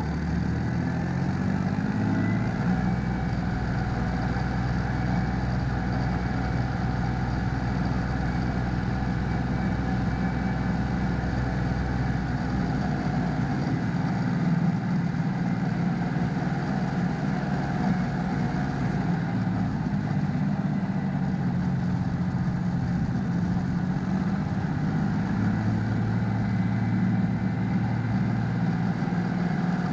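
Mitsubishi MTE2000D tractor's three-cylinder diesel engine running as the tractor is driven, engine speed rising over the first couple of seconds and then holding steady.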